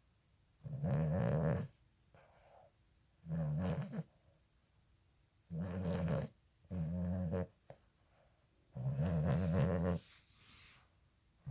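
Boston Terrier puppy snoring in its sleep: five snores at an uneven pace, each about a second long, with a fainter one near the end.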